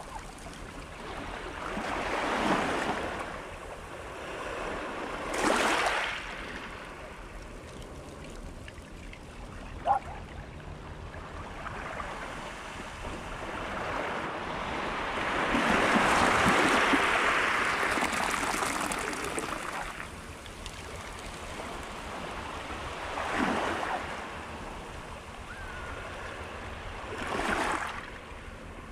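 Sea waves washing in on a rocky, seaweed-covered shore, coming in as a series of swelling surges with a steady wash between them; the longest and loudest surge comes about halfway through.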